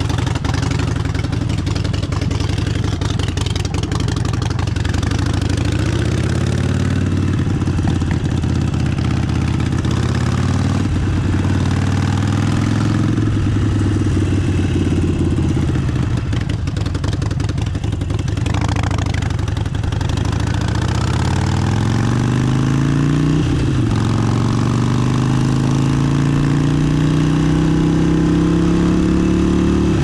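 Harley-Davidson Forty-Eight's air-cooled 1200 cc V-twin with an aftermarket exhaust, pulling away and accelerating through the gears. The engine note rises steadily, then drops back at each shift, several times over.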